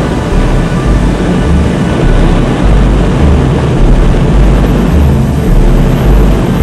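Airflow rushing past a glider's cockpit in flight: a steady, loud hiss with uneven low buffeting.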